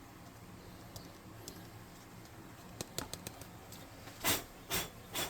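A few faint clicks of handling, then three short breathy puffs: air blown to clear loose flock from a freshly glued miniature base.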